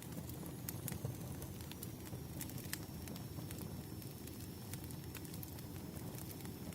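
Campfire crackling: irregular sharp pops and snaps over a low, steady rumble of burning wood.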